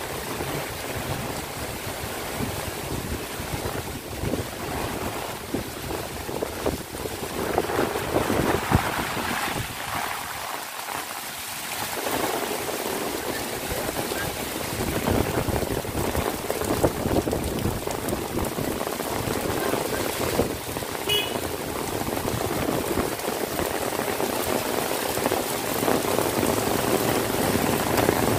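Heavy rain pouring onto a paved street, a dense steady hiss of splashing drops that grows louder in the second half.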